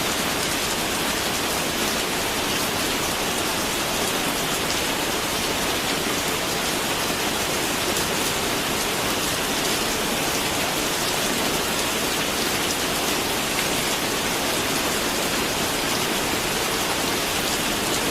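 Steady rain falling and pattering on a surface, an even hiss of many drops with no thunder.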